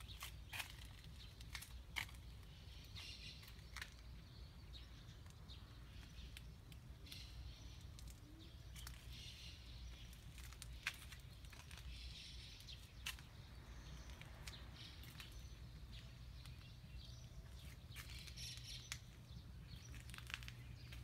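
Faint garden ambience: birds chirping now and then in the distance, over a low steady background rumble, with scattered light clicks.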